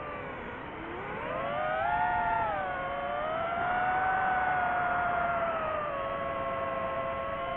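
DJI FPV quadcopter's motors and propellers whining, the pitch swooping low about half a second in, rising again, holding fairly steady through the middle and dipping slightly near the end as the throttle changes.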